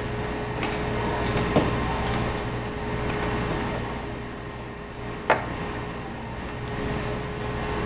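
Two sharp clicks, the second louder, from the plastic parts of a laptop being handled during reassembly, over a steady background hum.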